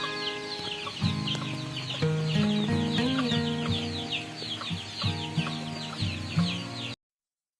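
Chickens peeping and clucking in a rapid run of short falling chirps over background music, cutting off suddenly near the end.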